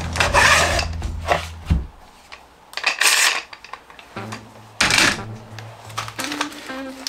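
Rubbing and scraping strokes as a veneer press's screw clamps are loosened and its metal bars pulled away, over a low hum that stops about two seconds in.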